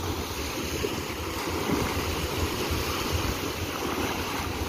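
Small sea waves breaking and washing up onto the shore in a steady wash, with wind buffeting the microphone.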